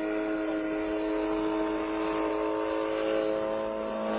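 Homemade helicopter's engine running at a steady speed, a constant hum with no change in pitch.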